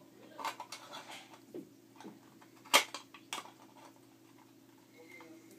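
Scattered light clicks and knocks from an LED flood light's aluminium housing and its cable being handled. The loudest is one sharp click near the middle, followed by a smaller one about half a second later.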